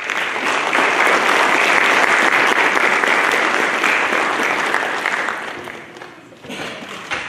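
Audience applauding to welcome a speaker to the podium: steady clapping for about five seconds, then dying away, with a short swell near the end.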